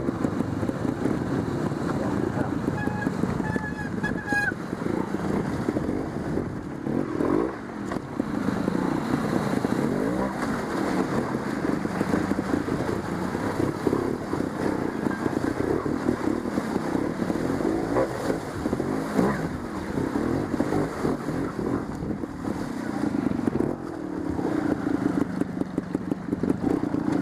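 Trials motorcycle engine revving up and down in short bursts as the bike climbs a rocky stream bed under load, the pitch rising and falling with each blip of throttle.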